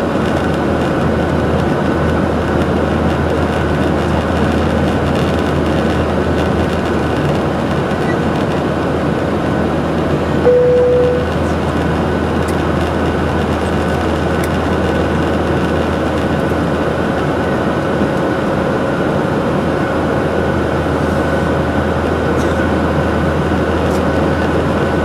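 Steady drone of jet engines and airflow inside an airliner cabin in cruise flight, with a low hum underneath. A single short tone sounds briefly about ten seconds in.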